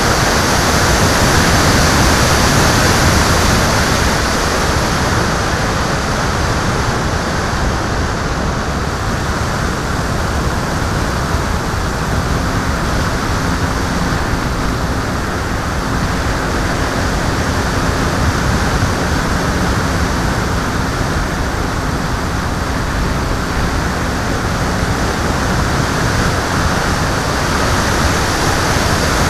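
Steady rush of wind over the microphone of an airborne camera, a dense even hiss with no breaks. A faint steady hum comes in about twelve seconds in.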